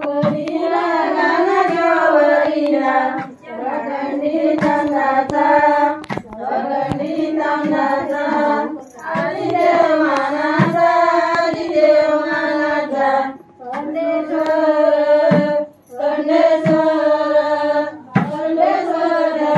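A group of women singing a traditional wedding song together in long phrases with short breaks between them, and hand claps keeping time.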